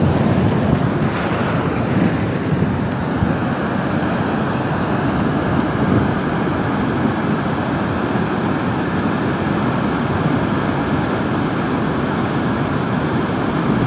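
Mudflow (sel) torrent rushing: a steady, even rush of fast-flowing muddy water and debris.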